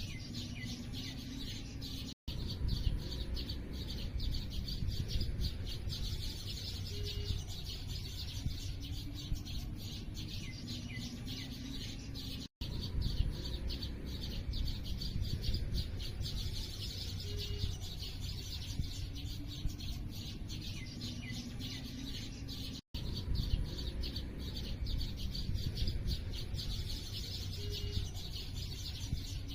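Many small birds chirping in a dense, continuous chorus of rapid high tweets over a low steady rumble. The same roughly ten-second stretch repeats as a loop, with a brief cut to silence at each join.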